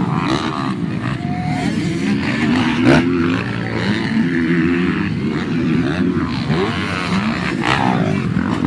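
Motocross dirt bikes racing over a dirt track, their engines revving up and down as they take the jumps. A single sharp knock comes about three seconds in.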